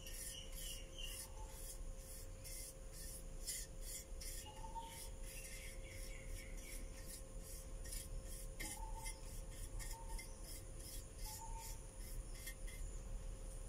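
Brush bristles scrubbing polish over an embossed brass plaque, in quick back-and-forth strokes about two or three a second, with a steady faint hum underneath.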